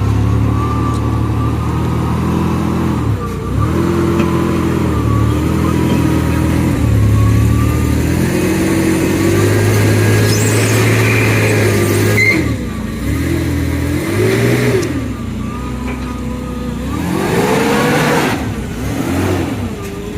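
Car engine revving up and down over and over, labouring as a vehicle with a flat tire is driven up trailer ramps.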